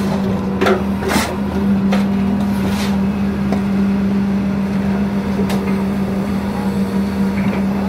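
Heavy diesel machinery running steadily with a constant droning hum, with a few sharp knocks in the first three seconds and another about five and a half seconds in.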